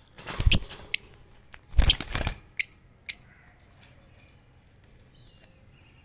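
Pair of Fischer's lovebirds moving about in a wire cage: two brief bursts of scuffling and flapping, about half a second and two seconds in, followed by a few sharp clicks.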